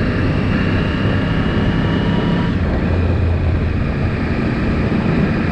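Yamaha R1 inline-four engine running as the bike is ridden during its break-in period; the engine tone drops in pitch about halfway through.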